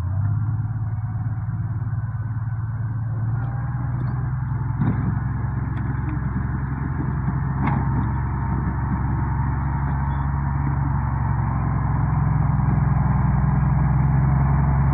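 Motor grader's diesel engine running steadily as it grades a dirt road, growing louder as the machine comes closer. Two sharp knocks sound about five and eight seconds in.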